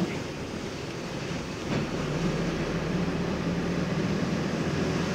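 Running noise of a moving road vehicle heard from inside the cabin: a steady engine hum over road and tyre noise. The hum drops away briefly at the start and comes back strongly a little under two seconds in.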